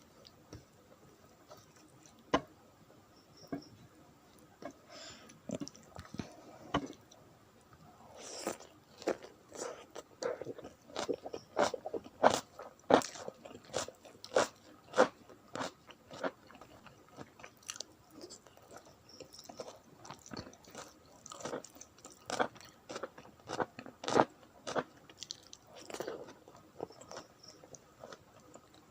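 Close-miked eating: a person chewing and biting into food, with crisp crunching bites and wet mouth clicks at an uneven pace, sparse at first and then frequent from about a third of the way in until near the end.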